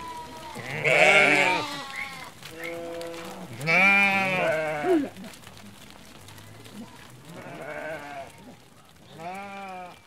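A flock of sheep bleating, several animals calling over one another. The loudest bleats come about a second in and from about four to five seconds in, with fainter ones near the end.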